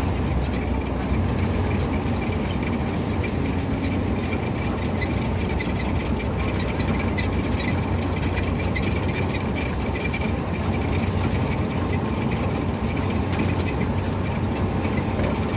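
Steady engine and road rumble of an intercity bus under way, heard inside the cabin, with faint light rattles on top.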